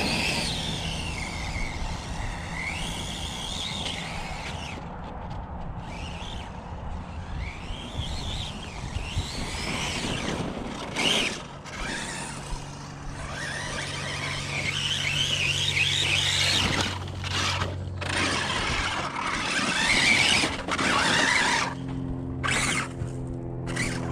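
Spektrum 1250kv brushless motor and drivetrain of an Arrma Notorious RC truck whining up and down in pitch as it repeatedly speeds up and slows. The owner thinks the gear mesh still sounds a little tight.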